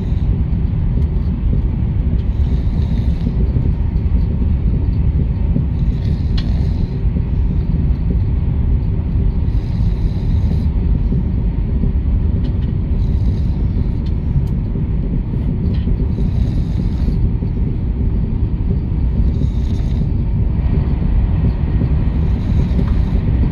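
Steady low rumble of an SRT high-speed train cabin, with a person snoring over it, one breath about every three and a half seconds.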